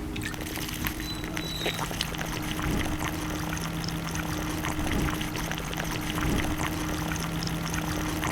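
Woodworking machinery running in a workshop: a steady hum with two low held tones under a dense crackling hiss, with scattered small clicks and knocks.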